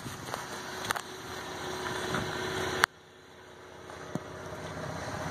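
The 2016 GMC Canyon's V6 engine idling steadily. A few light clicks come through, and a sharp click just under three seconds in is followed by an abrupt drop in level.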